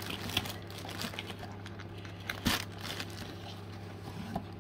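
Cardboard product box and its sleeve being handled and opened, with light rustling and crinkling of the packaging and one sharper rustle about halfway through.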